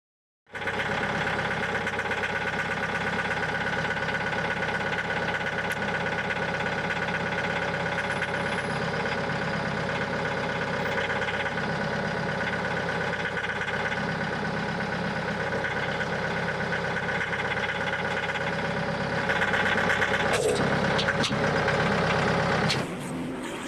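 An engine running steadily at a constant speed. It starts suddenly about half a second in, gets louder for a few seconds near the end, then drops off just before the end.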